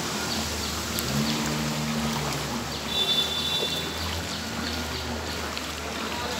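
Floodwater on a waterlogged street: a steady wash of flowing, splashing water, with a low hum that comes and goes and a brief high tone about three seconds in.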